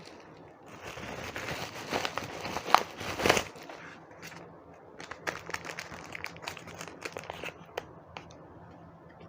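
Packaging around a keyboard's power adapter being unwrapped by hand: a dense rustle with crackles for a few seconds, then scattered small crackles.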